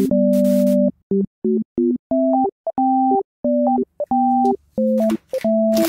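Background music: a simple synthesizer tune of short, clean held notes, a low line under a higher melody, with brief gaps between the phrases.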